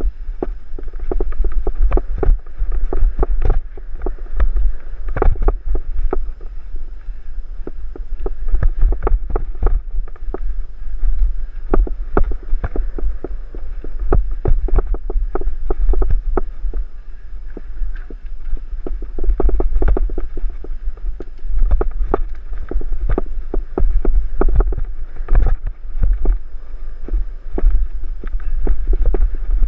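Mountain bike riding down a rough dirt singletrack: a constant low rumble of wind buffeting the microphone, with frequent irregular rattles and knocks from the bike and tyres over roots and bumps.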